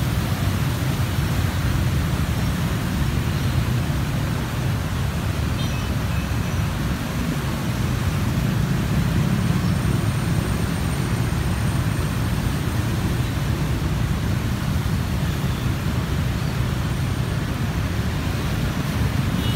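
Steady din of motorbike traffic driving through a flooded street, the engines running with the wash of water around the wheels.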